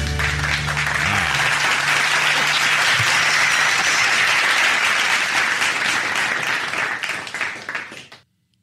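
Crowd applauding, a dense steady clapping that fades out near the end, following the end of a song.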